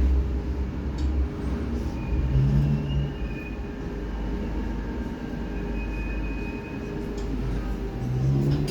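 St Petersburg Metro 'Baltiets' train running steadily with a low rumble and faint steady whining tones, and a brief low hum twice.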